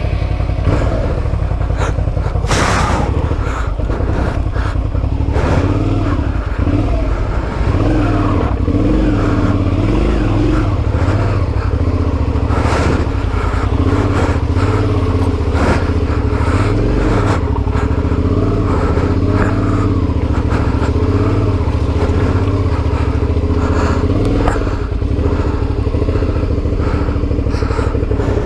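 Adventure motorcycle engine running, its revs rising and falling as it is worked at low speed. Scattered knocks and clatter sound over it.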